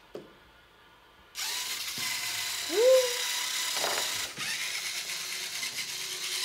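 LEGO Mindstorms robot's small electric motors running through their plastic gears, starting a little over a second in, with a faint steady whine and a few knocks. About three seconds in there is a short rising tone.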